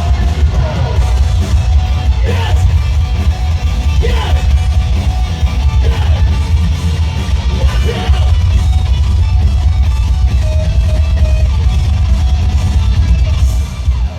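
A rock band playing live through a large PA: heavy, booming bass and drums under guitars and sung, yelled vocals.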